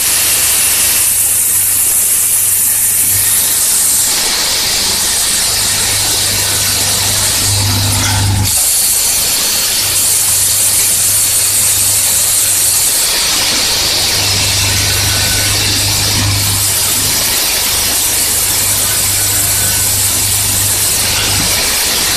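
An automatic screw-and-parts assembly machine running, with vibratory bowl feeders and pneumatic actuators. A steady high hiss and rattle sits under a low mains hum that switches on and off in stretches of several seconds.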